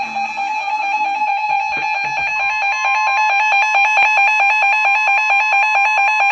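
Emergency Alert System attention signal: a loud, steady, shrill alarm tone with a fast flutter, and a second tone joining it about two seconds in to make the two-tone EAS alert.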